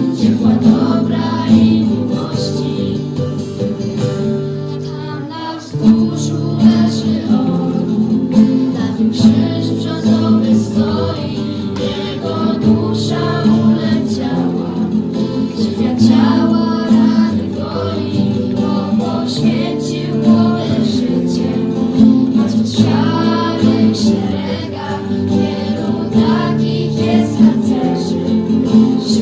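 Live acoustic song: a small group of voices singing together over an acoustic guitar accompaniment.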